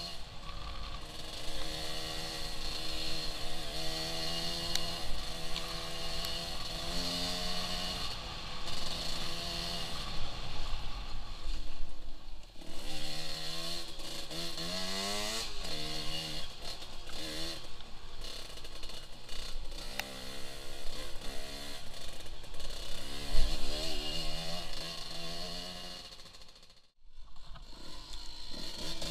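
Yamaha DT 125 two-stroke single-cylinder dirt bike engine revving up and down as it is ridden along a trail, the pitch climbing and falling with the throttle. The sound cuts out briefly near the end.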